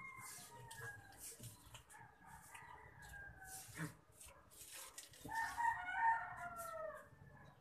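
Rooster crowing: one loud crow about five seconds in that falls in pitch toward its end, with fainter crows from other roosters before it. Light scratching and rustling of hands working potting soil runs underneath.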